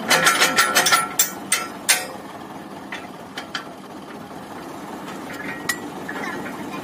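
Wrench, pin and bolts clinking and clanking against steel while an implement frame is fastened to a tractor's lower link arm: a quick run of clanks in the first two seconds, then a few scattered clicks. A low steady rumble runs underneath.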